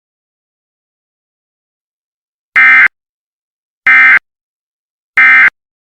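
Emergency Alert System end-of-message signal: three short, loud bursts of buzzy digital SAME data tones, about a second apart, marking the end of the alert.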